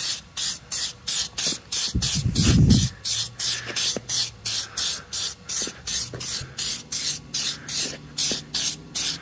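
Aerosol headlight clear-coat spray from a Meguiar's can, let out in short, quick hissing bursts, about three a second, as a medium coat goes onto a sanded plastic headlight lens. A louder low rumble comes about two seconds in.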